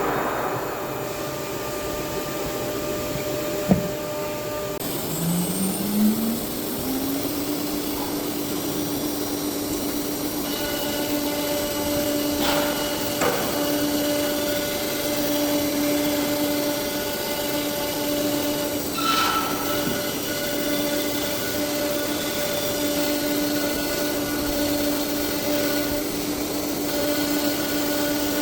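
Spindle of a 1325 ATC CNC router spinning up about five seconds in: its whine rises, then holds at a steady pitch over a constant mechanical hiss. A sharp click comes just before the spin-up.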